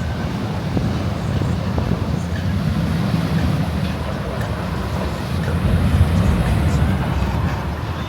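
Strong wind buffeting the camera's microphone, a steady low rumble that swells a little about six seconds in.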